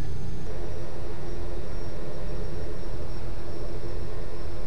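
Quest Kodiak 100's Pratt & Whitney PT6A turboprop running at low taxi power: a steady rumble with a thin, high, steady whine.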